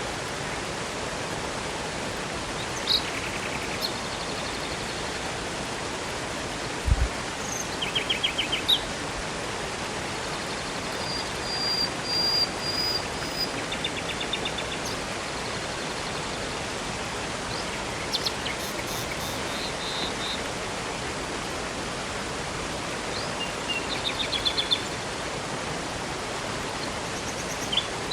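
Steady rush of river and waterfall water, with songbirds chirping and trilling every few seconds over it. A short low thud sounds about seven seconds in.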